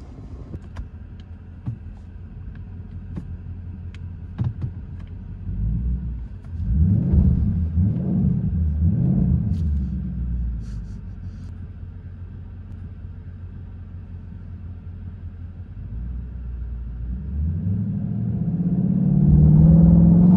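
Ford Mustang GT's 5.0-litre V8 idling, revved in three quick blips about seven to nine seconds in. It settles back, then the revs climb near the end as the car starts to accelerate.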